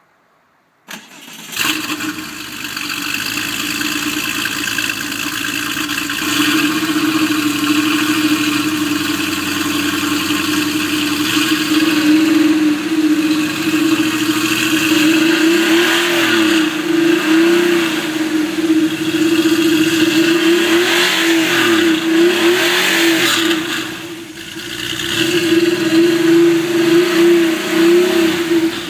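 Porsche 964's air-cooled flat-six, breathing through a sport catalyst and a single-outlet Scart Cup exhaust, starts about a second in and settles to a steady idle. In the second half it is blipped several times, each rev rising and falling back to idle.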